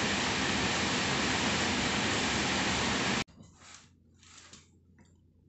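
A pot of fish stew at a rolling boil on a gas stove, with a steady rushing noise. The noise cuts off abruptly about three seconds in, leaving only faint sounds.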